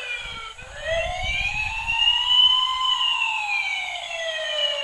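Toy fire truck's electronic siren sounding a slow wail. The pitch dips about half a second in, rises for about two seconds, then falls again. A low rumble sits under it for the first two seconds.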